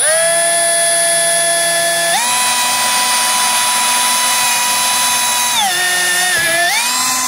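Milwaukee cordless drill with a quarter-inch bit drilling a pilot hole through a snowmobile's plastic tank cover: a steady motor whine that steps up in pitch about two seconds in, drops near six seconds, then dips and picks back up near the end.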